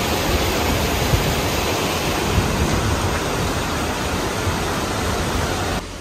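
Steady roar of rushing water from Peričnik waterfall, a dense, even hiss without any pitch. It drops off abruptly just before the end.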